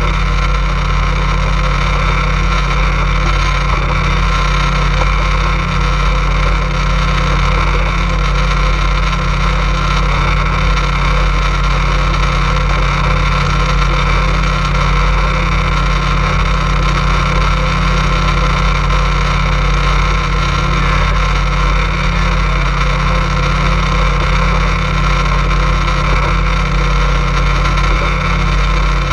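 Boat engine running at a steady speed under way, a constant drone that neither rises nor falls.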